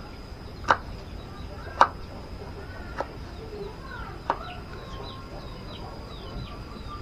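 Chickens clucking, with four sharp knocks spread over the first few seconds. In the second half a small bird chirps in a quick repeated series of short falling notes.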